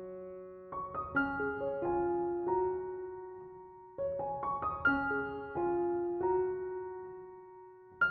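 Background music: soft piano playing short phrases of struck notes that ring and fade away.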